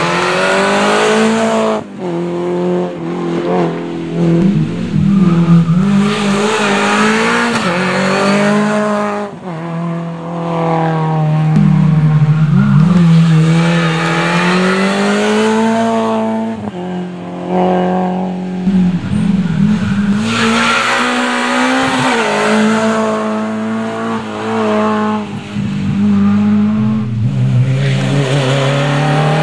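Rally cars (Renault Clios and a Citroën Saxo) taking a tight bend one after another, engines revving hard, the pitch climbing and dropping repeatedly with lifts and gear changes.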